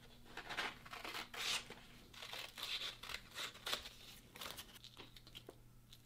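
Sandpaper rubbed by hand along a hardened steel cleaver blade, a series of short rasping strokes at about two a second.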